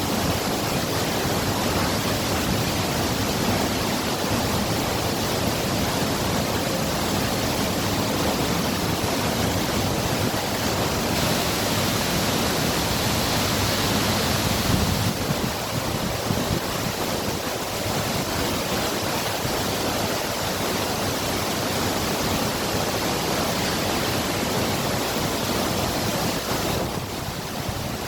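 Waterfall: a steady, unbroken rush of falling water, a little brighter around the middle.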